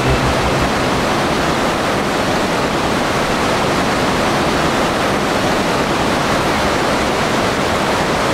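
Steady, even rush of water from a fast, muddy mountain river over rocks, with a tall waterfall behind it.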